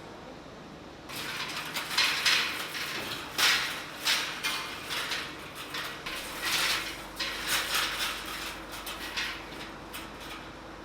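Irregular mechanical clattering and scraping that starts about a second in and goes on in uneven bursts, like hard parts rattling and sliding against each other in button-blank production.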